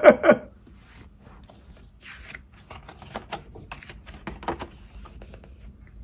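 Picture-book page being turned by hand: soft paper rustling with light crinkles and clicks over a few seconds.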